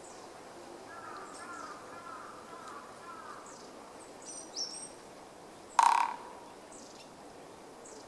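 Japanese pygmy woodpecker drumming: one short, fast roll of beak strikes on a tree trunk about six seconds in, loud against faint bird calls.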